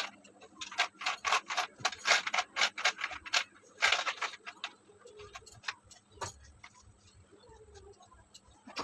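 A cotton bedcover being handled and spread on a bed: a quick run of rustles and light clicks, then a louder flap about four seconds in as it is shaken out over the mattress, followed by quieter rustling.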